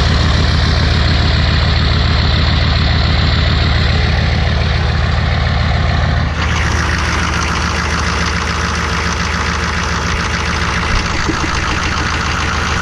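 Chevy 6.5L V8 diesel idling steadily, freshly started from cold, heard close to the tailpipe at first. About six seconds in the sound turns less deep and brighter as the engine keeps idling.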